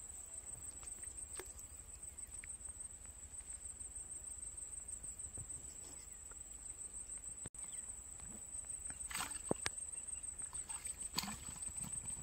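Quiet waterside ambience with a steady high-pitched whine and a low rumble; about nine seconds in, a few short splashes and rustles as a hooked fish is pulled thrashing to the surface of a shallow canal.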